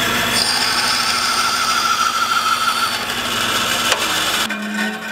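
Laguna 14X bandsaw running with a thin quarter-inch blade, cutting a short kerf into a board, with a higher whine while the blade is in the wood. A click comes just before four seconds in, then the running noise drops sharply, leaving a quieter, lower hum.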